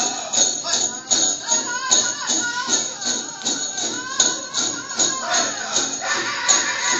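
Powwow drum song for a Prairie Chicken Dance: a steady beat about two and a half times a second with a voice singing over it, and bells jingling along with the beat.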